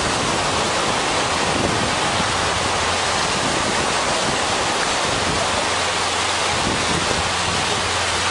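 Steady rushing hiss of small waves breaking on a sandy beach.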